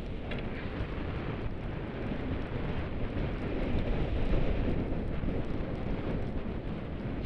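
Blizzard wind buffeting the microphone: a steady low rushing rumble with no break.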